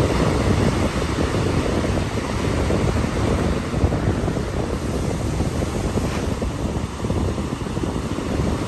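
Ocean surf washing onto a beach as a steady rush of noise, with wind buffeting the microphone.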